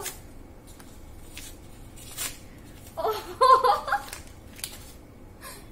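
Paper gift wrapping, stapled shut, rustling and crinkling in short bursts as it is unfolded and pulled open by hand. A woman's voice breaks in briefly about three seconds in, and is the loudest sound.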